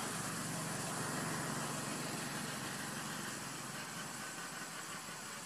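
A steady low hum like an idling engine, over continuous background noise with a thin, high, constant tone.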